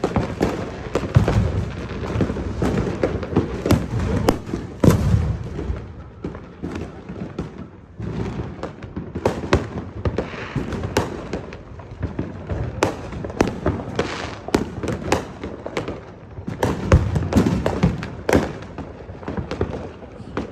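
Fireworks going off: a dense run of sharp bangs and crackles over deeper booms, coming in several thick bursts with short lulls between.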